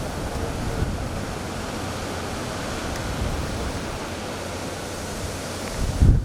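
Strong wind of a wind storm blowing steadily, a rushing hiss with low rumbling buffeting on the microphone, and a louder low buffet near the end.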